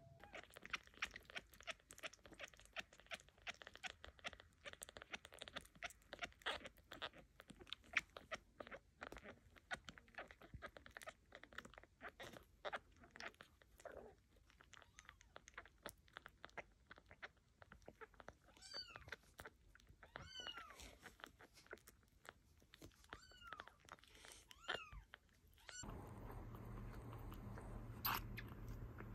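Bottle-fed kitten suckling: a rapid run of small wet clicks and smacks, with several short high squeaks about two thirds of the way through. Near the end the clicking stops and a steady low hum takes over.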